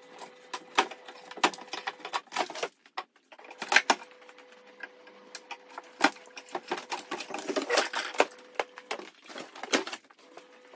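Plasterboard being pulled and prised off a timber stud frame: a run of irregular sharp cracks, snaps and knocks as the board breaks away from its fixings.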